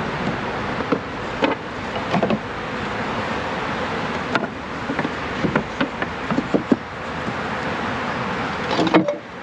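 Scattered light knocks and taps from handling wooden hive parts, over a steady outdoor hiss of wind or distant traffic.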